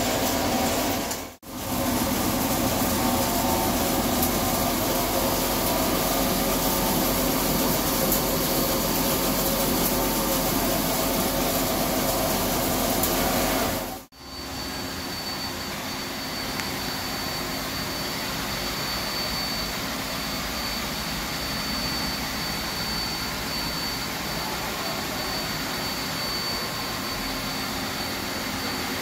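CNC vertical turret lathe running, its table spinning a large steel forging while the tool turns the bore: a steady mechanical hum and hiss with a few steady tones. The sound drops out briefly about a second and a half in and again about halfway, after which it is quieter, with a thin high tone.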